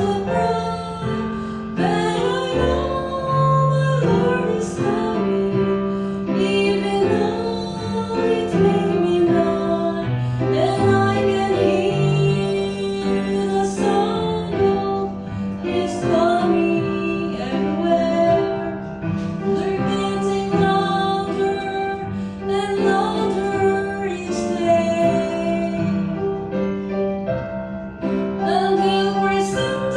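A woman singing with piano or keyboard accompaniment, her voice holding long notes over a steady backing.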